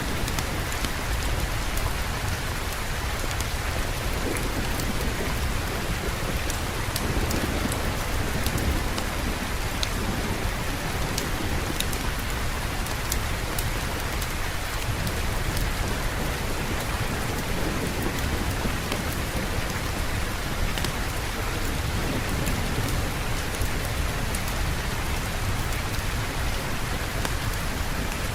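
Steady heavy rain, a constant hiss over a low rumble of thunder, with scattered small sharp ticks of drops throughout.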